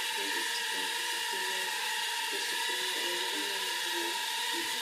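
Inductrix FPV micro quadcopter's four motors and ducted propellers whining steadily as it hovers, a high, even whine of several tones.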